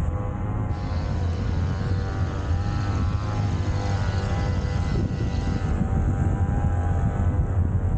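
A small engine running steadily with a low droning hum. A higher hiss joins over it about a second in and stops near six seconds.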